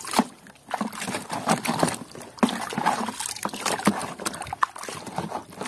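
Muddy, soapy water sloshing and splashing in a basin as a plastic toy gun is moved and scrubbed through it by hand, in irregular splashes.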